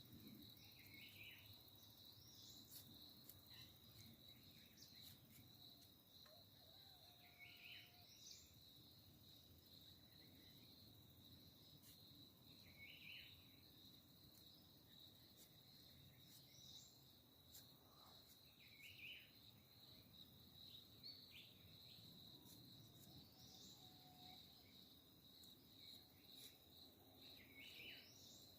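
Faint insect chorus: one steady, high, unbroken trill of crickets or similar insects. A short call repeats about every five to six seconds, with a few scattered higher chirps.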